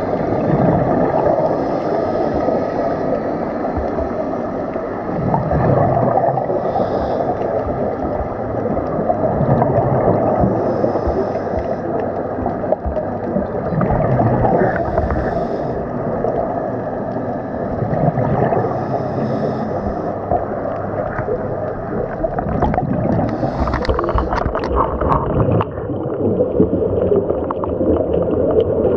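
Underwater scuba breathing heard through a camera housing: regulator exhaust bubbles gurgling out in a burst about every four seconds, over a steady rumbling wash of water noise.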